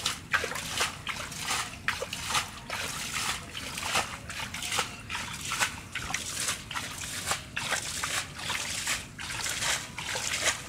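Hands splashing and sloshing through shallow muddy water: a run of quick, irregular splashes, two or three a second, from groping through the mud by hand for fish.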